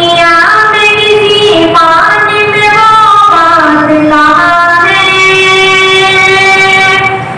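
A boy singing an Urdu devotional song (naat-style nazm) solo and unaccompanied, holding long notes and sliding between pitches, with a short breath break near the end.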